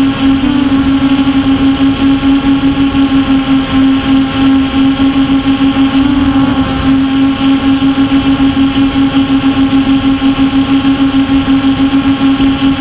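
MJX Bugs 5W quadcopter's brushless motors and propellers whining steadily in flight, heard close up through the camera mounted on the drone. The hum pulses rapidly and shifts pitch slightly about half a second in and again around six seconds in.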